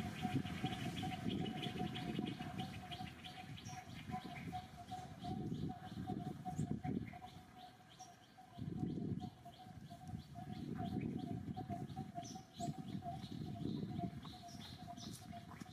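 Outdoor tree-canopy ambience: birds chirping with many short high calls over a steady, rapidly pulsing trill that runs on at one pitch. Low rumbling stretches of a second or two come and go and are the loudest part.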